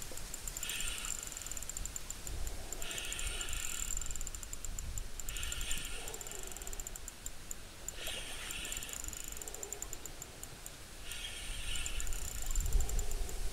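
Reedbed ambience: a steady high insect buzz, with a short call repeating about every two to three seconds and a low rumble underneath.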